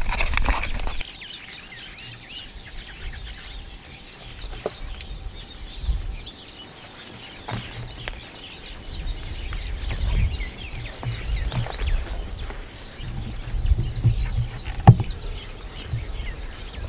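Many small birds chirping and singing throughout, over a low, uneven rumble of wind on the microphone. A few sharp knocks come from moving over rock, the loudest near the end.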